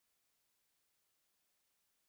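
Near silence: digital silence with only a faint even hiss.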